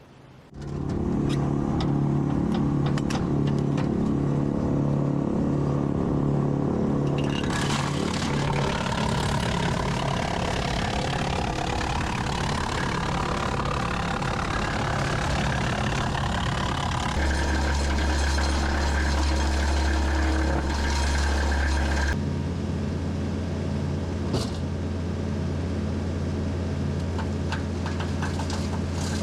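Tractor engine driving a PTO-driven Woodland Mills TF-68 PRO wood chipper: the machine sound comes in abruptly, then a whine rises steadily over several seconds as the chipper's flywheel and fan come up to speed. The tone shifts abruptly twice in the second half.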